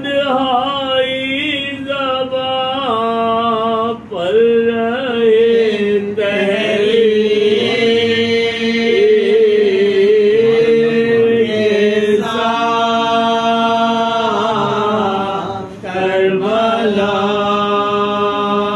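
Unaccompanied men's voices chanting a noha, a Shia Urdu elegy for Imam Husain, in long drawn-out notes. The chant breaks briefly for breath about four seconds in and again near the end.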